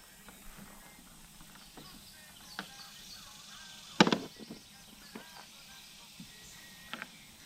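Scattered clicks and knocks, the loudest a sharp knock about four seconds in followed by a few quick lighter knocks.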